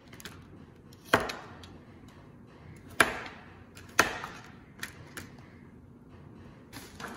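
A kitchen knife chopping carrots into chunks on a thin plastic cutting mat over a stone counter. There are three sharp, loud chops spaced a second or two apart and a couple of lighter cuts after them.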